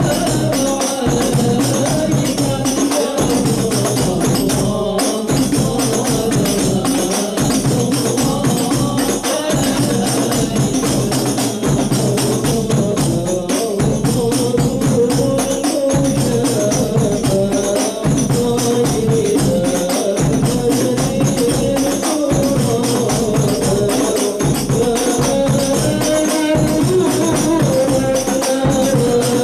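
Men singing an Arabic salawat to the Prophet together, led by singers on microphones, over hadroh frame drums (rebana) beating a steady rhythm.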